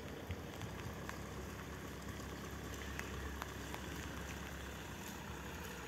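Quiet outdoor ambience: a low steady rumble with faint, irregular ticks scattered through it.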